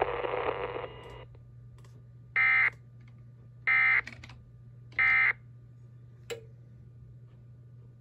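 EAS decoder sending the SAME end-of-message code: three short, equally spaced bursts of buzzy data tones, each about a third of a second, that signal the alert is over. Before them, the hiss of the replayed weather-radio message cuts off about a second in. A single click comes near the end.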